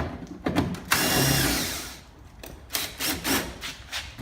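E36 BMW power window motor whirring for about a second, followed by several knocks and rattles from the door, with the window glass off its slider and the regulator damaged.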